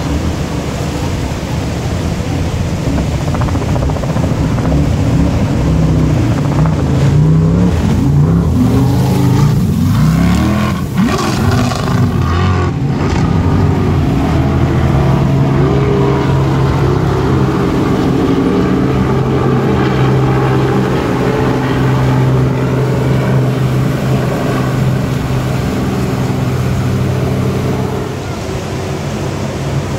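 Racing jet boat engine running hard up a whitewater rapid, its pitch sliding up and down for several seconds, then holding steady. The rush of the river runs beneath it.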